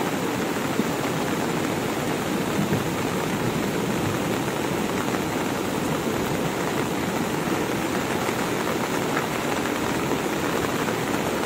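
Steady, even rushing of a cold lahar, a volcanic mudflow of muddy floodwater pouring down a river channel, mixed with heavy rain.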